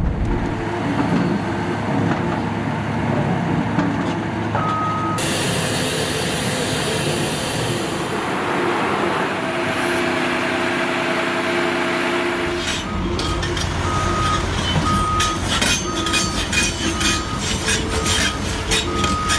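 Construction trucks and machinery running, broken by abrupt cuts. In the last six seconds a backup alarm beeps about once a second.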